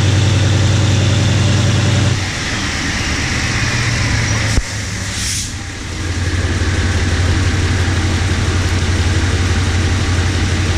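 GE diesel-electric locomotive's engine running at low power as it creeps along while shunting. Its note drops about two seconds in. A sharp click comes about halfway through with a short hiss right after, and then the engine runs steadily and loud again.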